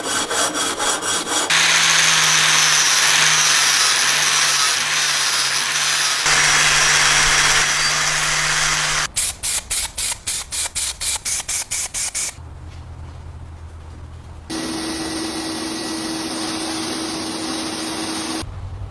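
Hand tool work alternating with a power tool: quick scraping strokes of a file or saw, about five a second, at the start and again past the middle, between stretches of a power tool running steadily with a hissing grind. A quieter low hum comes in briefly about two-thirds of the way through.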